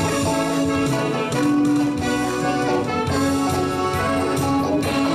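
Instrumental introduction of a song played by a small stage band, a brass-like lead melody over steady accompaniment, with no singing yet.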